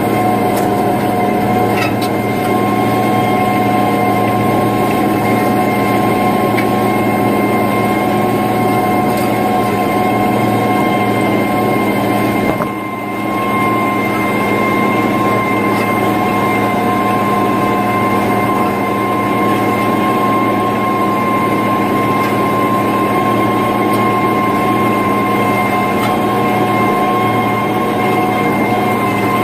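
International 3588 2+2 tractor's diesel engine running steadily under load as it pulls a 25-foot disc through corn stubble: a constant drone with a steady whine over it. The level dips briefly about halfway through.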